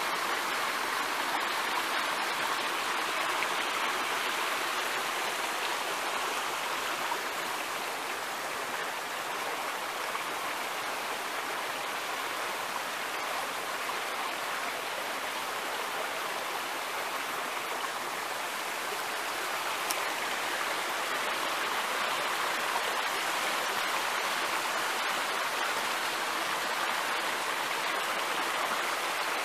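Stream water running steadily over stones, a constant even rush.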